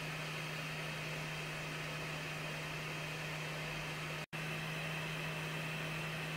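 Steady machine hum from a running RGB laser and galvoscanner rig: a low tone over an even hiss. It drops out for an instant about four seconds in.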